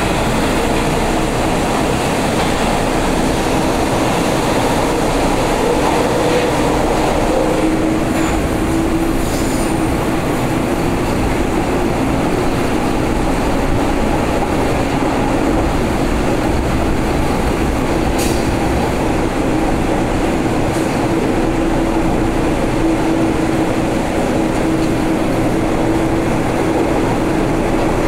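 Onboard sound of a São Paulo Metro Frota E (Mafersa/Alstom Milênio) subway train running along the line: steady rolling noise of wheels on rails under a steady low hum.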